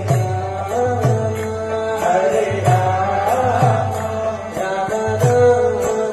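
Devotional aarti music: chanted singing over sustained melody, with a steady percussive beat about twice a second.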